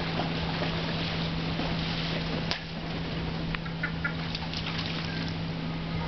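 Outdoor ambience: a steady low hum under a noisy background, a sharp click about two and a half seconds in, and a few short bird calls around four seconds.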